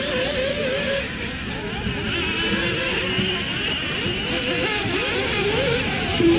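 Several 1/8 scale RC off-road buggies racing together, their small motors revving up and down in a constant overlapping whine.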